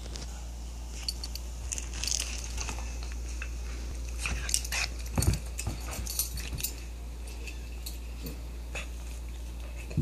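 A dog playing with a plush toy, chewing and tossing it: scattered rustles, clicks and mouthing sounds, busiest about four to six seconds in.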